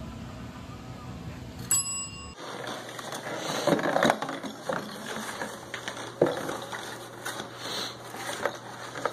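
A chrome desk service bell is struck once by the cat's paw, giving a single bright ding that rings out for about half a second. Then, from about two seconds in, cardboard crackling and scraping with sharp clicks as an animal scrabbles inside a cardboard box.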